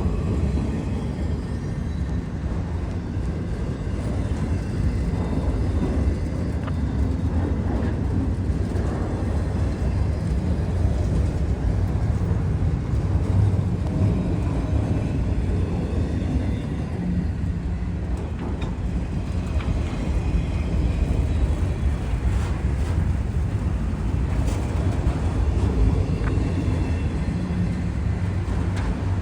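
Freight train of loaded auto-rack cars rolling past: a steady low rumble of steel wheels on the rails, with faint irregular clicks and clacks.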